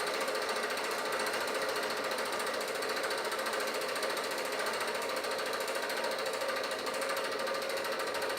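8mm film projector running, a steady fast mechanical clatter of its film-pulling mechanism.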